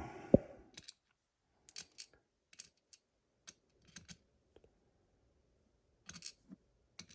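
Scattered small, sharp clicks and taps of tiny metal parts: a gutted pin-tumbler lock's pins, springs and tools being picked up and set down while the pin stacks are sorted.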